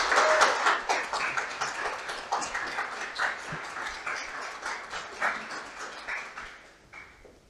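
Audience applauding: a dense burst of clapping, loudest at the start, that thins and fades away gradually and dies out near the end.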